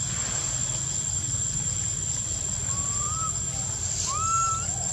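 A young long-tailed macaque giving two short, whistle-like coo calls that rise in pitch, about three and four seconds in, the second louder. A steady high-pitched tone runs underneath.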